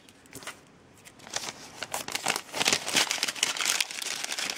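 Brown kraft-paper gift bag crinkling and rustling in the hands as it is opened, starting about a second in after a brief quiet moment.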